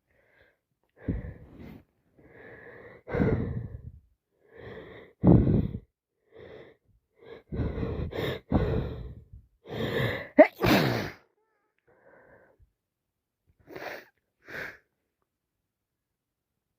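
A woman with a head cold sneezing again and again: a run of wet sneezes, each drawn in with a wheezing, gasping breath, over about ten seconds. Two short, quieter breaths follow near the end.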